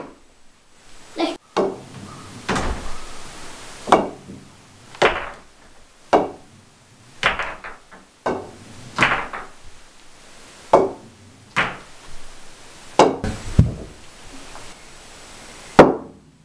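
Pool cue striking the cue ball and pool balls clacking together, a sharp knock every one to two seconds, a dozen or more in all.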